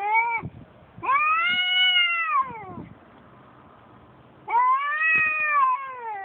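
Male cats yowling at each other in a territorial standoff: the tail of one long call, then a long yowl that rises and falls, a pause of about a second and a half, and another long yowl that slides down in pitch near the end.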